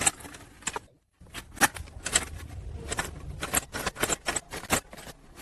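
A series of sharp clicks and taps at an uneven pace, a few a second, broken by a moment of silence about a second in.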